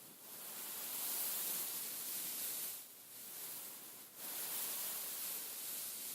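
A beaded pillow being scratched and rubbed by hand, giving a dense, high, hissing rustle of beads. It breaks off briefly twice in the middle.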